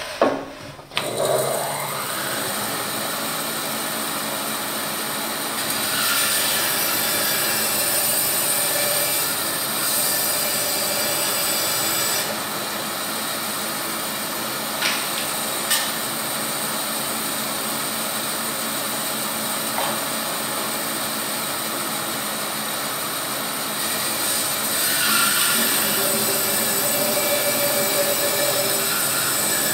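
Laguna bandsaw starting up about a second in, then running steadily while its blade rips through a round log held on a plywood jig. The cutting noise swells at times as the log is fed through the blade.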